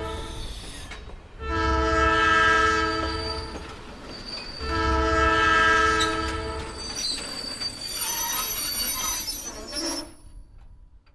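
Train horn sounding long blasts: the end of one just as it begins, then two more. After that come high-pitched squealing from the train's wheels and a low rumble, which fade out near the end.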